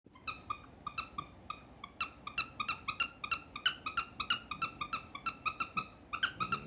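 Squeaky plush toy squeaking in quick, uneven succession, several short high squeaks a second, as a miniature dachshund bites and chews it.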